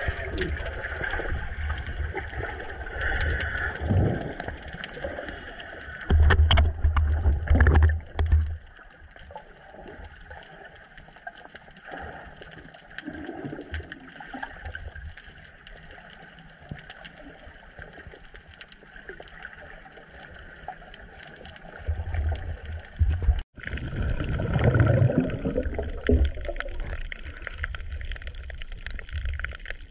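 Muffled underwater sound picked up by a submerged action camera: water swishing and gurgling, with low rumbling surges from movement in the water and a brief drop-out about two-thirds through.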